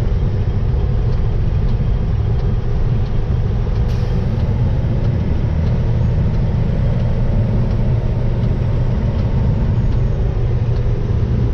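Steady low engine and road rumble heard from inside a moving vehicle's cab, even throughout, with a faint high whine that rises and falls again after the middle.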